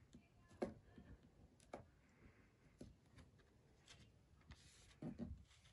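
Faint ballpoint pen writing on a paper card on a desk: soft scratching strokes with a few small clicks and taps, the sharpest about half a second in.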